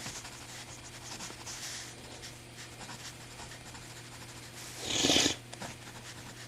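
Faint scratching of a sterling silver Cross mechanical pencil writing on paper, over a steady low hum. About five seconds in, one loud sniff from a stuffed-up nose.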